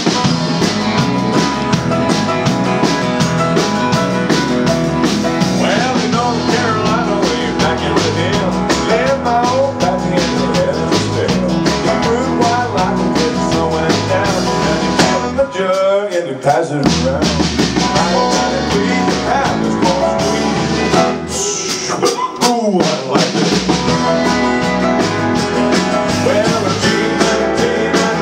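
Live band playing a country-rock number: drum kit keeping a steady beat under bass guitar and guitars. The drums and bass drop out briefly twice, about halfway through and again some six seconds later.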